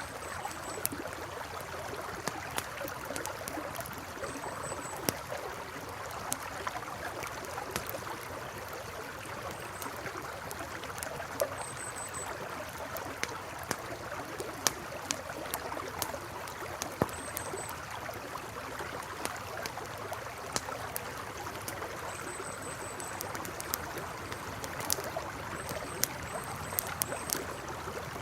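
A river flowing steadily with a campfire crackling over it, the fire giving frequent sharp, irregular pops.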